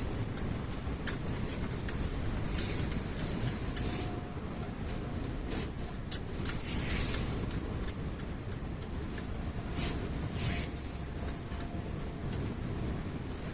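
Strong wind rumbling steadily on the microphone, with scattered sharp clicks and a few short gusty hisses.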